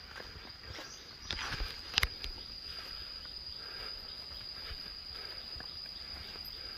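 Insects chirring steadily at one high, unbroken pitch. A few knocks sound about one to two seconds in, the sharpest a single click about two seconds in.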